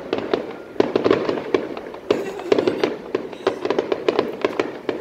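Aerial fireworks shells bursting in a dense, irregular barrage of bangs, several every second.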